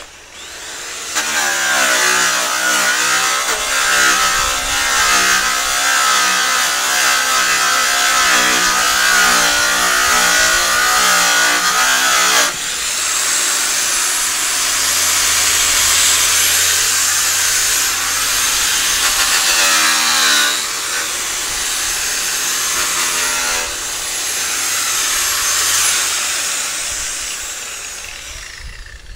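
Makita angle grinder fitted with a polishing pad, run against a semi-trailer's metal panel: a steady motor whine with a coarse rubbing hiss. The load and pitch shift abruptly about twelve seconds in, then the tool winds down near the end.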